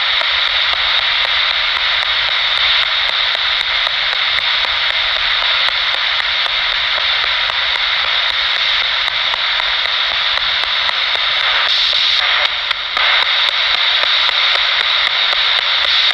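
Radio static from a spirit box sweeping through stations: a steady loud hiss with faint regular ticks about three times a second.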